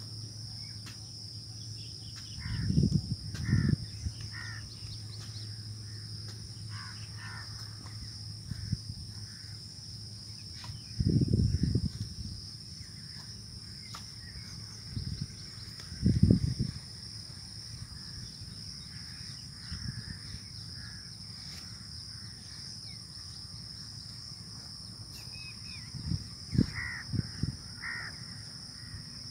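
Crows cawing now and then over a steady high-pitched insect drone. A few short, dull low bumps stand out louder, about three, eleven, sixteen and twenty-seven seconds in.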